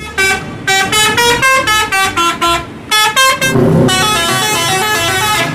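Bus's musical multi-tone "telolet" horn playing a quick tune of short notes that step up and down in pitch, breaking off briefly near the middle and starting again, over road traffic.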